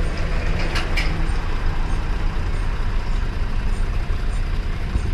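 Heavy diesel truck engine idling, heard from the cab of the BharatBenz 4023, with a steady low rumble. Two short sharp clicks come about a second in.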